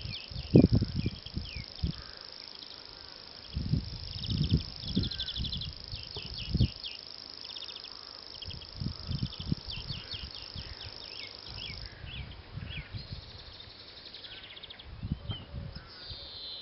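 Grasshopper warbler reeling: a continuous high, insect-like trill that breaks off about twelve seconds in and starts up again near the end. Other birds chirp between the reels, and low thumps are heard, the loudest about half a second in.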